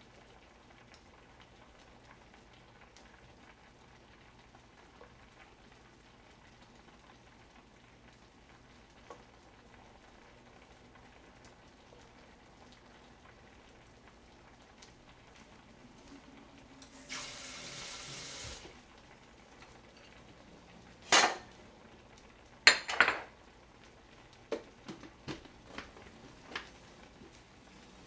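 Kitchen handling: chopsticks and plastic containers clatter faintly as side dishes are portioned into small bowls. About 17 seconds in there is a short rush of noise, then sharp knocks and clacks of containers and dishes; the loudest come around 21 and 23 seconds, with lighter clicks after them.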